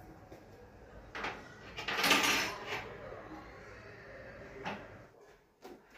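Household kitchenware being handled at a Turkish coffee machine: a few knocks and clinks, a louder clatter about two seconds in, and sharp clicks near the end.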